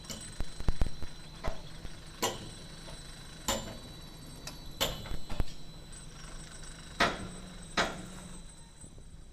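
Irregular sharp knocks and clanks, some with a short ring, about every second or so, over a low steady rumble: construction work.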